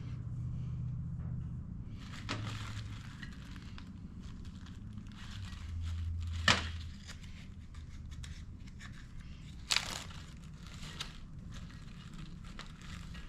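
Plastic parts bag from a carburetor rebuild kit being crinkled and rummaged through, with small parts rattling, and two sharp clicks, one near the middle and one about three seconds later.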